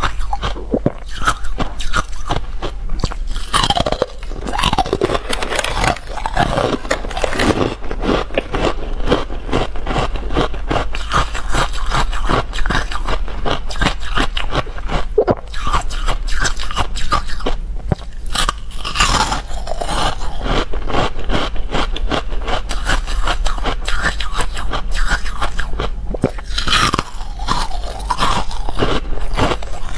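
Pink carbonated ice being bitten and chewed close to a clip-on microphone: dense, continuous crackly crunching.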